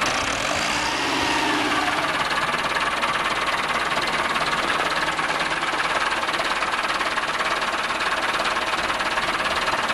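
Farm tractor's diesel engine running steadily under load while towing a hydraulic boat trailer, with a brief rise and fall in pitch about a second in.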